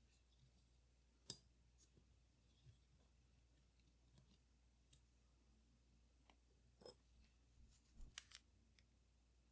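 Faint, scattered clicks and taps of small metal tools and parts being handled while a Leica IIIF camera is taken apart: a sharp click about a second in, a few soft ones, and a quick cluster of clicks near the end.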